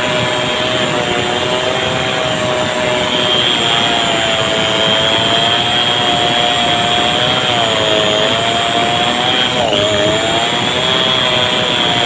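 Two-stroke chainsaw running at high throttle while cutting into the trunk of a bendo tree, its engine note wavering under the load of the cut. The pitch dips sharply and recovers about ten seconds in.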